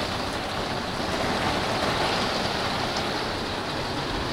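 Rain and wind of a huge storm, a steady rushing noise.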